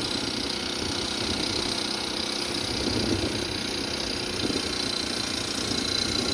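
Motor vehicle running steadily along a road, its engine hum mixed with road and wind noise.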